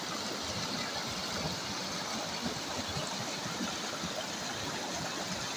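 Shallow, clear river running over stones and gravel, a steady rushing and babbling of water.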